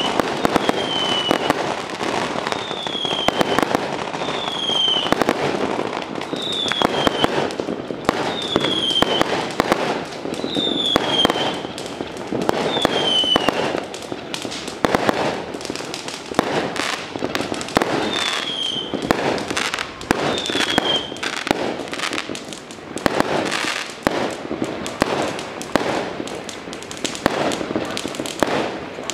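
A long string of firecrackers set off for the Jade Emperor worship, crackling densely and without a break. A short falling whistle repeats about every two seconds through the first half and comes twice more later.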